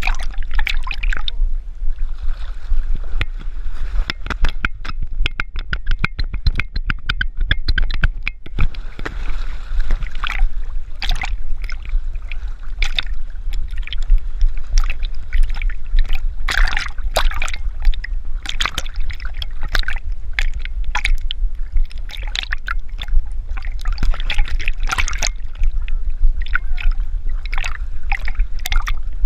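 Lake water sloshing and gurgling around a camera strapped to a swimming springer spaniel, with irregular splashes from its paddling and a constant low rumble underneath.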